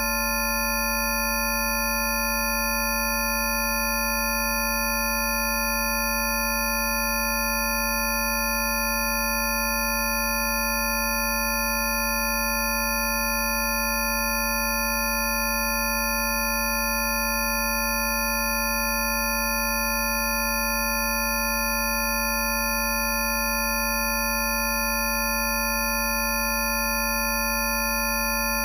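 Several pure electronic sine tones sounding together and held without change, from a deep low hum through mid whistles to thin high tones: generated Rife therapy frequencies.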